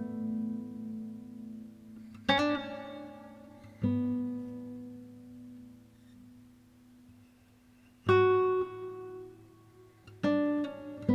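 Background music: slow solo guitar, single plucked notes and chords that ring out and fade, with long pauses between them.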